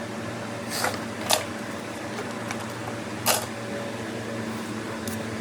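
A steady machine hum, like a fan running, with three short sharp clicks or taps, the first two close together about a second in and a louder one a little past three seconds.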